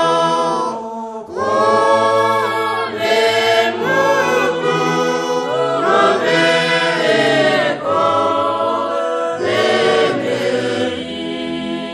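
Choir singing a Herero gospel song in harmony, in phrases with short breaks, ending on a long held chord near the end.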